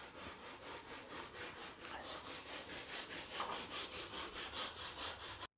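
Rhythmic back-and-forth scraping strokes, about five a second, like a tool rasping or sawing through material. The sound cuts off abruptly near the end.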